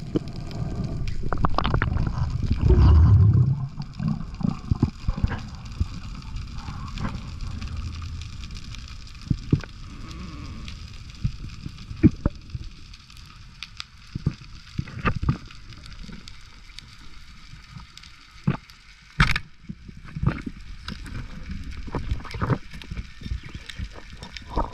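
Underwater sound picked up by a head-mounted GoPro as a spearfisher dives: a loud low rumble of water and bubbles in the first few seconds, then a muffled hush with scattered clicks and knocks.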